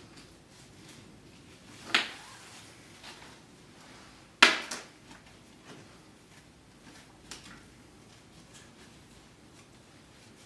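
A few sharp clicks and knocks. Two louder ones stand out, about two seconds in and about four and a half seconds in, the second being the loudest, with fainter ticks between and after.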